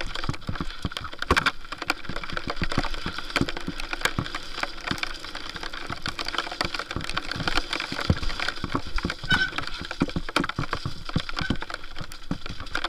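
Lapierre Zesty TR full-suspension mountain bike clattering down a wet, rough trail: a constant run of irregular knocks and rattles from the bike and tyres striking rocks and roots, over a steady hiss of tyres through mud and water.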